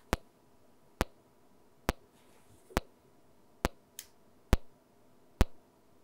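A test signal of short, sharp clicks, evenly spaced a little under a second apart, playing through a Rapco mic-level audio transformer that is fed a line-level signal, more than it is built for.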